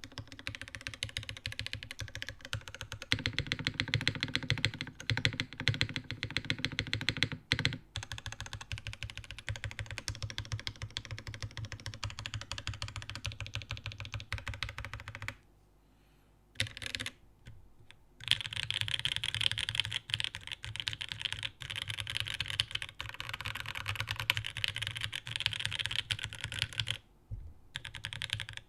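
Fast typing on a custom TGR x GAF 910 mechanical keyboard with an aluminium top-mount plate, lubed, filmed and spring-swapped OPblack switches and GMK Tenshi keycaps: a dense run of key clacks, with a pause of a couple of seconds about halfway through and a brief one near the end.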